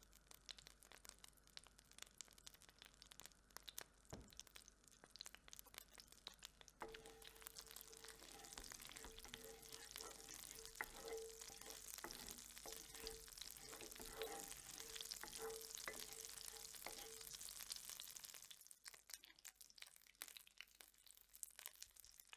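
Butter and olive oil sizzling and crackling in a cast iron skillet, a steady patter of small pops. Through the middle, while a wooden spatula stirs the fat, the sizzle grows dense and then thins out again near the end.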